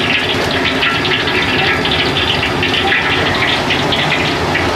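Steady rushing and hissing of a busy wok station: water running from a tap onto the stainless-steel stove top, with the gas burners going under the woks.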